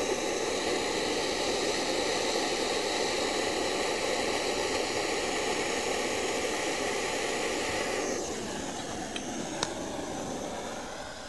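Handheld gas torch flame hissing steadily as it heats copper pipe joints for soldering. The flame is shut off about eight seconds in, followed by a faint tick or two.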